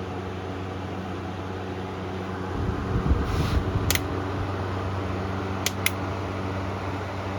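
Honeywell HT-70-19 10-inch table fan running steadily on high speed, with a low motor hum under the rush of air from its blade. About halfway through there is a brief low rumble, and a few sharp clicks follow.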